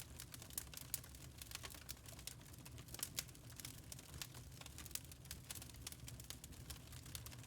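Wood fire crackling in a fireplace: irregular small snaps and pops, a few sharper ones, over a low steady rumble.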